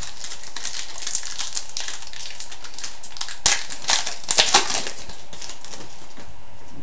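Foil trading-card pack wrapper being torn open and crinkled by hand, a run of sharp crackling rustles that is loudest around the middle.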